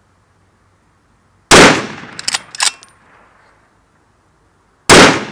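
Two rifle shots from a .308 Savage Impulse Elite Precision, about three and a half seconds apart, each dying away over about a second. A few sharp metallic clicks follow the first shot.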